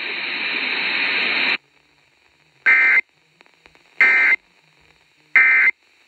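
Radio static hiss for about a second and a half, then three short, buzzy Emergency Alert System (SAME) data bursts a little over a second apart: the end-of-message code that closes a weather-radio warning.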